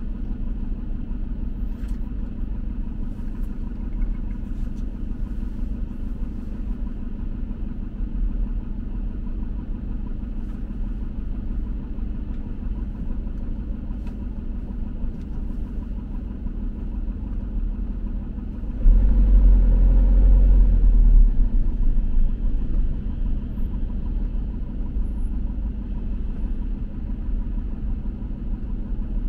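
Steady low rumble of a vehicle driving in city traffic, with a louder surge lasting about two seconds around two-thirds of the way in.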